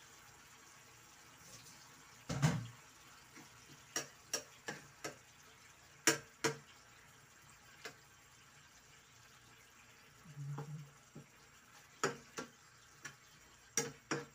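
Spatula knocking and scraping against a nonstick frying pan as broccoli is stirred into sardine sauce: irregular sharp taps and clacks, with a low thud at about two and a half seconds and a louder clack at about six. The sauce simmers faintly underneath.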